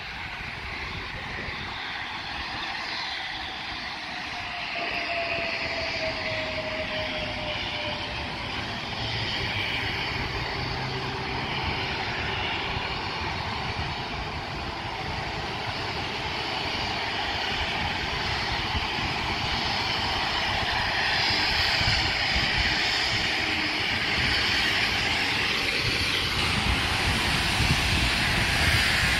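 Steam locomotive approaching under steam: a steady rumble and hiss from its exhaust, growing gradually louder as it nears.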